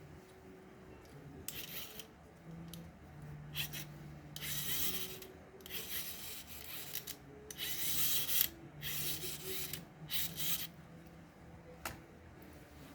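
Hand work on a Nao robot's plastic and metal parts during disassembly: repeated scraping and rubbing strokes of about a second each, with a few sharp clicks near the start and near the end.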